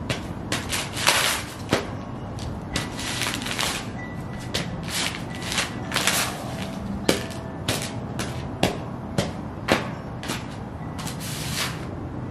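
Sheepskin boots stomping and shuffling on loose glossy magazines: irregular crunches and crackles of paper underfoot, with scuffing rubs between the steps.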